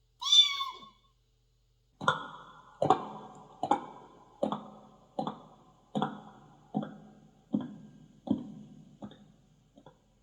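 Mouth-made sound effects: a short gliding whistle-like tone, then a run of about eleven twangy plucked notes, each struck sharply and fading, about one every 0.8 seconds.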